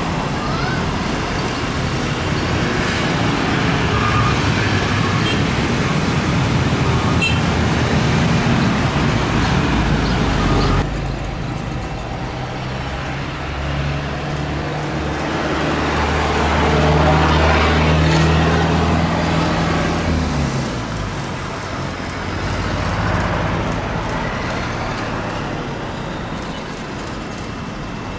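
Airliner jet engines close by at the runway: first an Airbus A330 running loud, then, after a sudden change about eleven seconds in, an Airbus A350's Rolls-Royce Trent XWB engines on final approach. The A350's low drone swells as it passes, then drops in pitch and fades as it touches down and rolls out.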